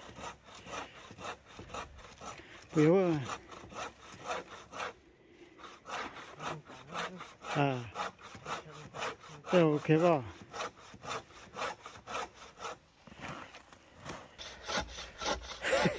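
Hand saw cutting through wood with quick back-and-forth strokes, pausing briefly about five seconds in and again near the end. Several strokes carry a short squeal that rises and falls in pitch.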